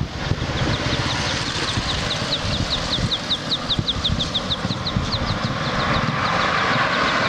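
A chick peeping in a quick, even run of short falling peeps, about five a second, over a steady low rumble.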